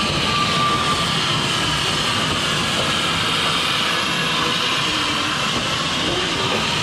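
Welsh Highland Railway Beyer-Garratt steam locomotive hissing steadily as it and its train move past along the platform.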